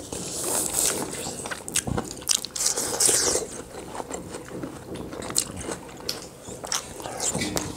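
People biting and chewing chunks of ripe watermelon close to the microphone: a run of wet, crunchy bites and chewing.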